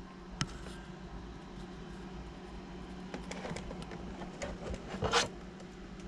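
Handling noise from a plastic RC model car being turned over in the hand: a few faint clicks and one brief scraping rustle about five seconds in, over a steady low room hum.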